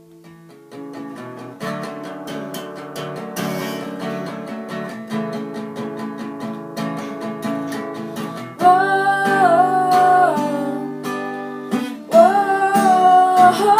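Instrumental break played on acoustic guitar: strummed chords come in under a second in and build steadily louder. About two thirds of the way through the music jumps in level and a wordless held melody line joins.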